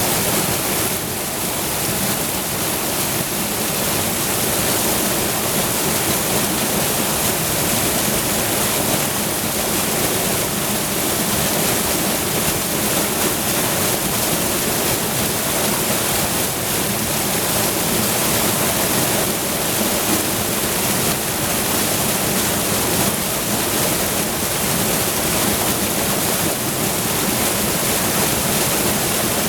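Water pouring steadily over a river waterfall, a continuous rushing roar.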